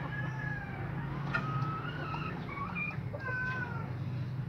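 The drawn-out end of a rooster's crow, fading out about half a second in, followed by several short, high, gliding calls, over a steady low hum.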